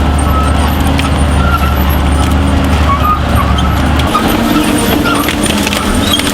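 Diesel engine of heavy forestry machinery running steadily under load. The deep low drone drops away about four seconds in and the engine note shifts.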